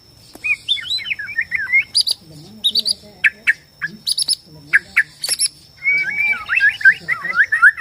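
White-rumped shama (Borneo murai batu) singing: a rapid string of varied whistled phrases that slide up and down, broken by short sharp high notes, with a long continuous warbling run near the end.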